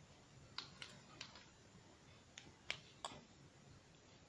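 Faint, light clicks and taps, about six of them in the first three seconds, as the parts of a Taparia 840 precision screwdriver set are handled and fitted together to lengthen the screwdriver.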